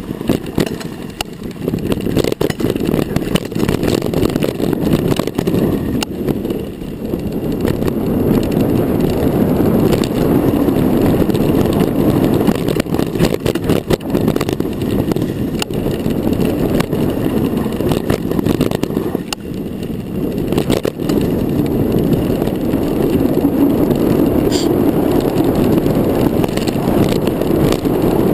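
Mountain bike riding fast down a dirt singletrack: a steady rush of wind buffeting the microphone over tyre noise, with frequent sharp rattles and knocks from the bike over bumps.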